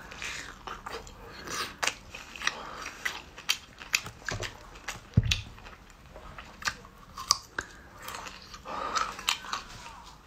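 Close-miked chewing and biting: wet mouth sounds with many sharp crunchy clicks as soft egg pancake and then raw garlic cloves are eaten. A single low thump about five seconds in is the loudest sound.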